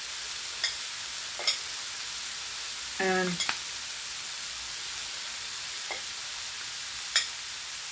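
Food frying in a pan, a steady sizzle with a few light clicks and taps spread through it. A brief hummed vocal sound comes about three seconds in.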